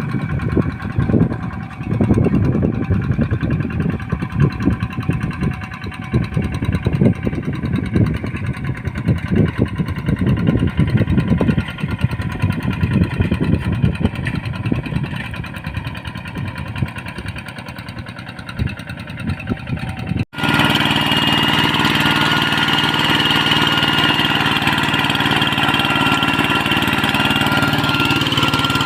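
Tractor engine running under load while working a rice paddy, uneven and lumpy for about twenty seconds. After an abrupt cut it becomes a steadier, louder engine sound with a faint steady whine.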